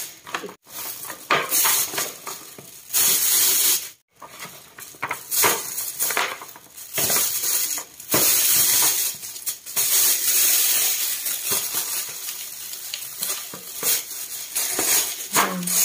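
Thin plastic bag crinkling and rustling in irregular bursts as hands pack raw dumplings into it.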